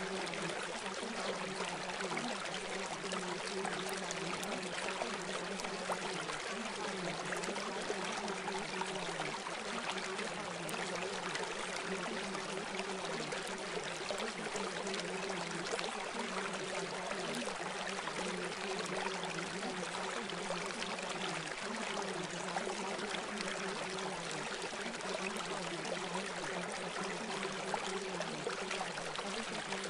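Steady, unbroken rushing water like a flowing stream, the masking track of a subliminal recording, with a faint steady low hum beneath it.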